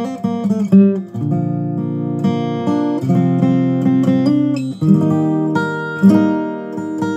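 2018 Martin OM-21 orchestra-model acoustic guitar, rosewood back and sides with a spruce top, played solo fingerstyle: picked chords and melody notes that ring on under one another.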